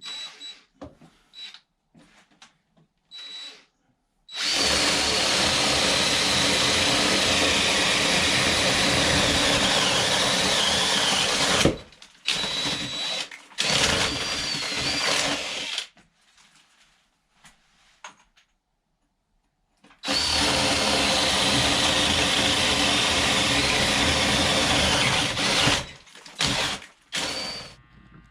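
Power drill boring through wood: a few short trigger pulls, then two long steady runs of about seven and six seconds, with short bursts between and after them.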